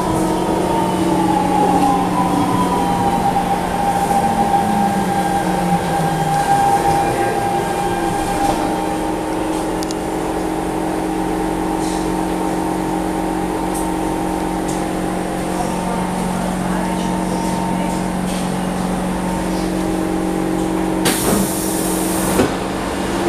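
SMRT C651 metro train's GTO-inverter traction motors whining down in pitch as the train brakes to a stop, then the steady hum of the stopped car's equipment. A short hiss comes near the end as the doors open.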